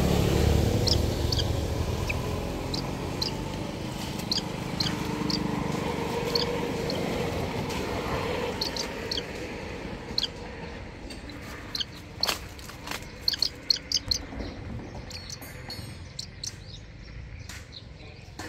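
A young hawk giving short, thin, high-pitched calls over and over as a hand strokes its back, the protest calls of a bird that does not want to be touched. A few sharp clicks come about twelve to fourteen seconds in.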